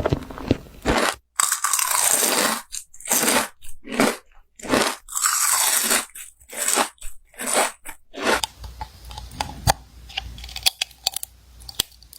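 Crisp food being bitten and chewed: loud crunching in quick bursts, which about eight seconds in gives way to quieter chewing with scattered small clicks.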